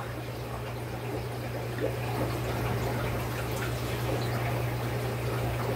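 Aquarium water trickling from a running filter, with a steady low hum underneath.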